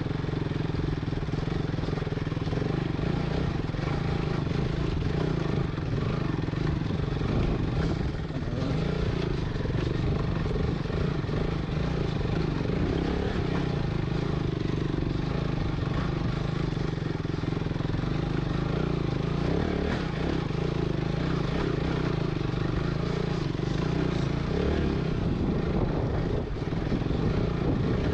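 Motorcycle engine pulling steadily under load while riding up a rocky off-road trail, heard from a helmet-mounted camera.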